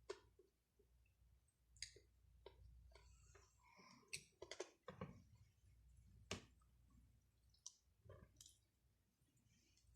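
Faint, scattered clicks and smacks from someone eating, with a few quick clusters about halfway through.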